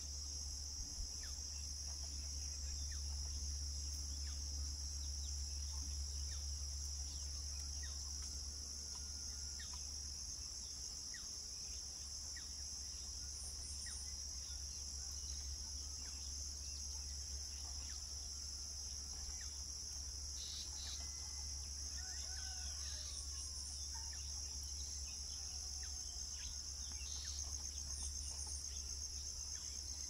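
Steady high-pitched insect chorus trilling without a break, over a low steady hum. A few short bird chirps come in the second half.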